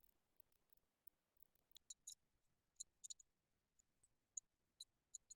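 Near silence with faint, irregular clicks from a computer keyboard and mouse, starting about two seconds in.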